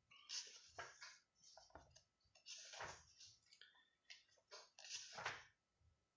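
Pages of a book being leafed through by hand: a string of faint paper rustles and flicks, the longest and loudest about three and five seconds in.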